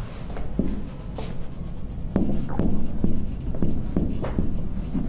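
Marker pen writing on a whiteboard: a run of short scratching strokes, about two a second.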